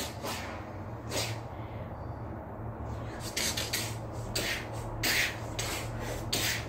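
A person shadow-boxing, with short, sharp hissing puffs of breath on the punches: about ten, irregularly spaced and bunched toward the second half. A steady low hum runs underneath.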